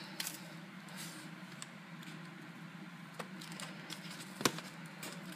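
Faint handling of a planner's diary pages and their plastic wrapping, with a soft click about three seconds in and a sharper click about four and a half seconds in, over a steady low hum.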